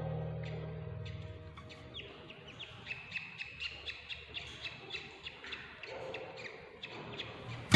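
Budgies chirping in a quick run of short, rising peeps, two or three a second, after background music fades out at the start.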